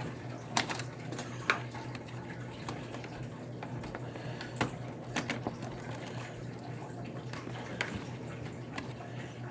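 Scattered small clicks and taps from handling the iBook G4's screws and plastic parts during reassembly, a handful spread irregularly over a steady low hum.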